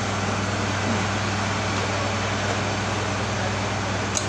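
Steady mechanical hum with even fan-like noise, and a single sharp click about four seconds in.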